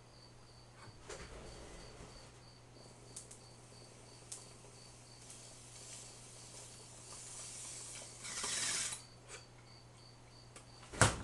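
Glass water bong being smoked: a soft drawing hiss that builds into a louder rush of bubbling air about eight seconds in, as the bowl is pulled and the chamber cleared. A sharp click near the end. A faint high chirp repeats about three times a second throughout.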